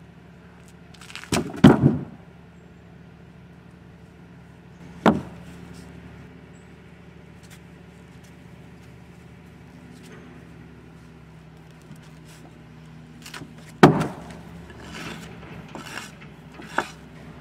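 Chainsaw running steadily in a chainsaw mill, ripping along an oak log, heard as a faint, even engine drone. Three loud, sharp knocks stand out above it, about a second and a half in, about five seconds in, and near the end.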